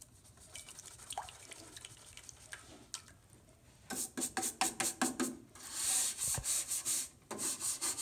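Stiff-bristled hand brush scrubbing a rusty metal bird feeder. After some faint handling noises, quick back-and-forth strokes begin about halfway in, run into a longer continuous scrub, then break into short strokes again near the end.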